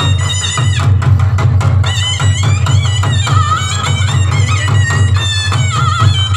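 Loud live folk dance music: steady heavy drumming with a wavering, reedy melody line playing over it.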